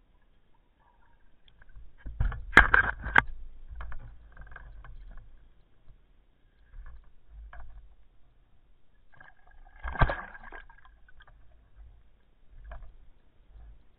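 Water splashing and bubbling from a spearfisherman swimming up and surfacing with his catch, heard through an underwater camera. There is a loud cluster of splashes and knocks a little over two seconds in, another loud rush of water about ten seconds in, and fainter sloshing in between.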